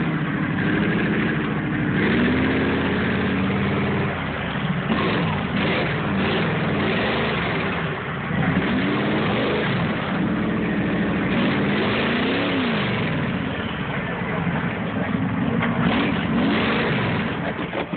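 Jeep engine revving up and down again and again as it struggles to climb a slippery rock waterfall.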